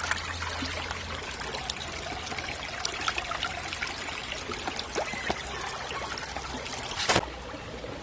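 River water trickling steadily, with small scattered clicks and one sharp knock about seven seconds in.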